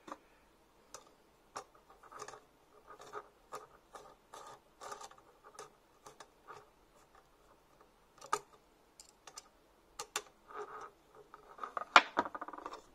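Hex key turning a socket-head screw into a 3D-printed U-joint on a square aluminium tube, with irregular small clicks and scratches of metal on metal and plastic. A louder clatter of handled parts comes near the end.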